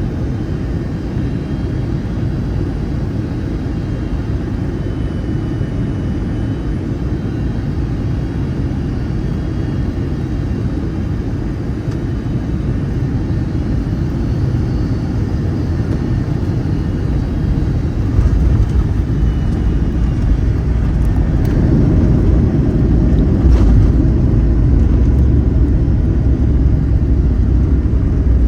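Cabin noise of a Boeing 757-200 during landing: a steady rumble of engines and airflow that grows heavier and louder about two-thirds of the way in.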